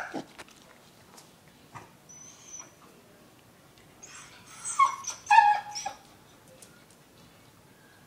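Dog whimpering and whining in a few short, high, wavering cries about halfway through, nervous of a large bone it is being offered. A short sharp sound comes right at the start.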